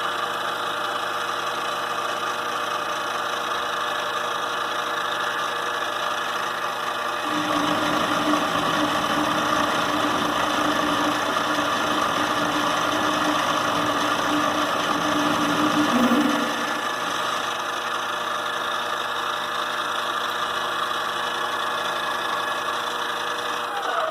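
Vevor CJ210A 8x14 benchtop metal lathe running steadily, its gear-driven headstock giving a steady mechanical whine. For about nine seconds in the middle a louder, lower, rougher sound with a steady hum joins it, as the cutting tool takes a turning cut in the workpiece.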